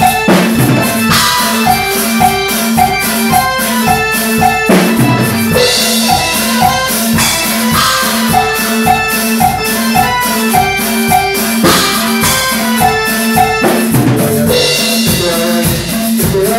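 Band playing cumbia: an electronic keyboard plays the melody and chords over a steady drum kit beat with bass drum, snare rimshots and several cymbal crashes.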